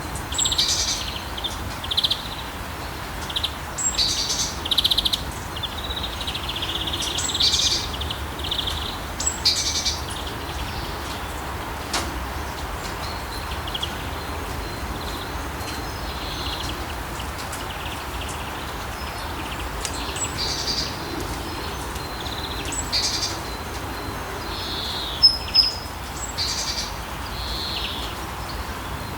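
Steady rain falling, with songbirds chirping over it in many short, high phrases, busiest near the start and again later on.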